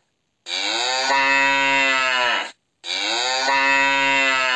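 Cow mooing: two long moos of about two seconds each, each holding a steady pitch and falling away at the end.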